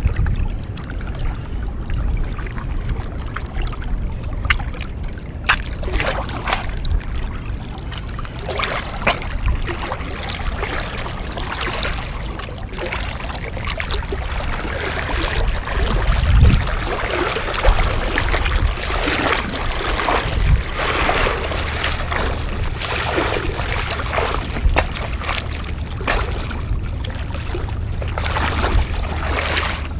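Legs wading through shallow seawater, with irregular splashing and sloshing over a steady low rumble of wind on the microphone.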